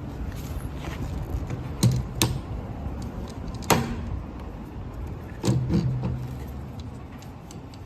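Sharp clicks and knocks of a REX diamond core drill being handled, over a low steady hum. The loudest come about two seconds in and near four seconds in, with another pair around five and a half seconds.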